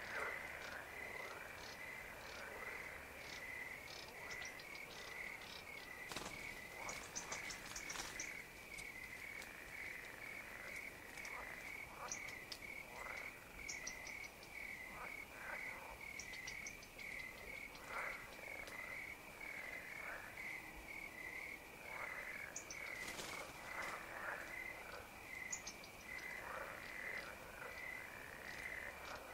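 Pond chorus of frogs calling at irregular intervals with short, falling calls, over a steady pulsed chirping of crickets at about two or three pulses a second.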